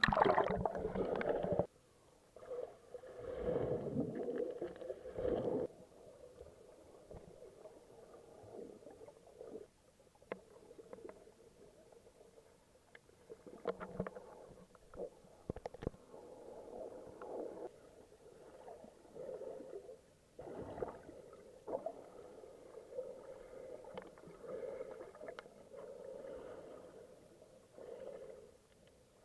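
Muffled water sloshing and gurgling in uneven swells, with a few small knocks, loudest in the first seconds.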